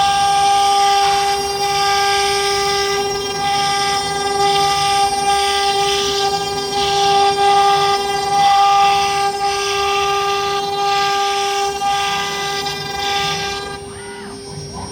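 AKM2040 CNC wood router running, its spindle giving a steady high whine with a rasping cutting noise that rises and falls as the bit works. Near the end the cutting noise drops away for a moment.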